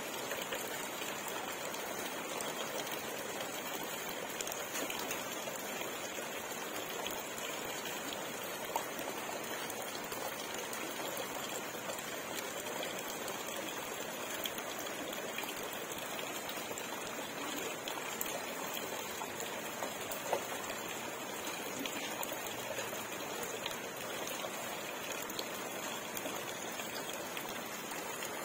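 Pond water trickling and splashing steadily, broken twice by a brief sharp splash.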